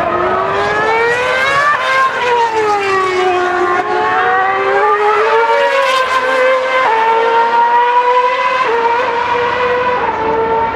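Formula One cars' 2.4-litre V8 engines running at high revs on track. The pitch climbs and drops sharply at a gear change about two seconds in, then rises again and holds a steady high note broken by further gear changes.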